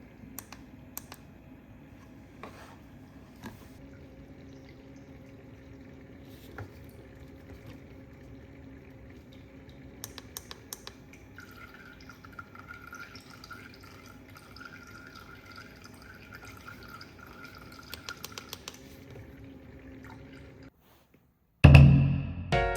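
Water dripping and trickling over a steady low hum, with scattered small clicks, from the homemade water-cooled mat's water system. Music with drums comes in suddenly and loudly near the end.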